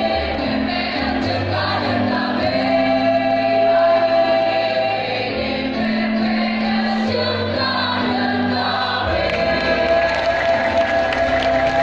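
Choir singing long held chords that change every second or two, over sustained low bass notes.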